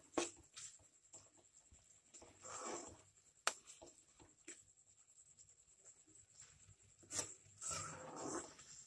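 Spatula scraping through thick tomato-and-egg chutney in a kadai, with a few sharp knocks of the spatula against the pan and two short scrapes.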